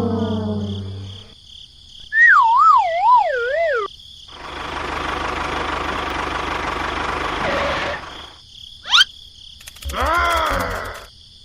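A string of cartoon sound effects: the tail of a falling 'wah-wah' brass phrase, a warbling whistle that wobbles downward, a few seconds of steady hiss, a quick rising whistle, then a short springy boing.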